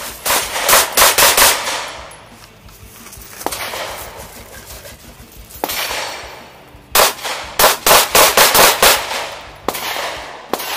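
Semi-automatic handguns firing: a quick string of about five shots, then a few single shots, then a faster string of about eight shots about seven seconds in, each shot trailed by a ringing echo.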